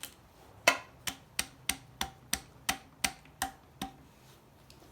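A run of about eleven sharp metallic taps, roughly three a second, the first one loudest, some ringing briefly.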